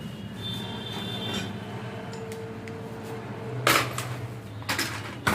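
Metal tools and parts knocking and clinking during diesel pump repair work: three sharp knocks in the last second and a half, over a steady low hum.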